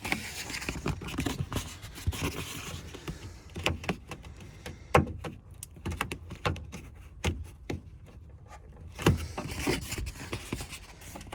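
Plastic vapour-barrier sheet being peeled off the sticky sealant of a Ford Mondeo mk4 inner door panel: crinkling and crackling, with scattered clicks and knocks as it is handled.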